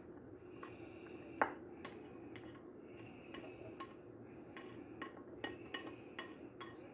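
Plastic serving spoon scraping and tapping against a plate and a metal basin as diced cheese is pushed off into the salad: faint scattered clinks, with one louder knock about a second and a half in.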